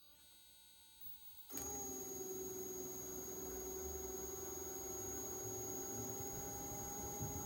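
Panasonic CU-405DFL2 air conditioner outdoor unit starting up about a second and a half in, then running steadily: a rush of air from the propeller fan with a steady hum whose pitch creeps slightly upward.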